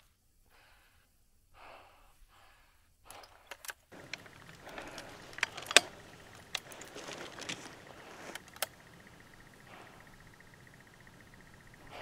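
Soft rustling and breath-like handling noise close to the microphone, with several sharp clicks; the loudest click comes about six seconds in. The first few seconds are almost silent.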